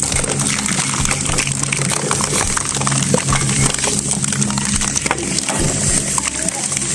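Industrial shredder running with a steady low hum while it crunches material, giving a continuous rush of noise broken by many irregular cracks and snaps.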